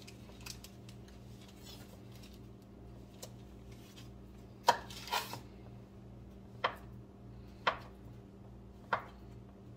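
Chef's knife cutting through a stick of butter and striking a wooden cutting board, five sharp knocks about a second apart in the second half, over a faint steady hum.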